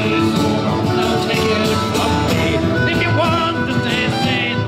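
Music with a singing voice over guitar and band accompaniment, continuous and even in level.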